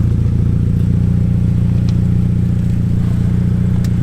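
Car engine droning at a steady cruise, with road noise, at one constant pitch and no revving.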